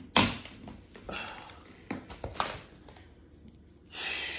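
A few sharp knocks and clicks from things being handled, the loudest just after the start. Near the end a steady hiss sets in.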